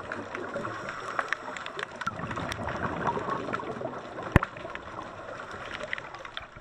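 Underwater sound in shallow water: a steady rush and gurgle of moving water and divers' exhaust bubbles, with many small scattered clicks and crackles. There is one sharp knock a little past the middle.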